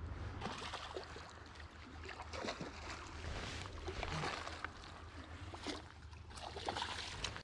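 Hooked trout splashing and thrashing at the water's surface as it is played to the bank and netted: irregular splashes and sloshes over a steady low rumble.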